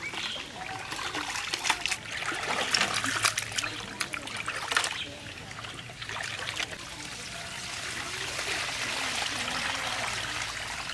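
Hands washing pieces of silver pomfret in aluminium basins of water: splashing and sloshing, then in the second half a steadier trickle of water as a basin is tipped and drained.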